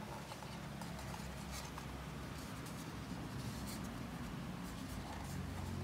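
Faint scattered clicks and light scraping from hands handling the mesh Wi-Fi unit and its power plug, over a steady low hum.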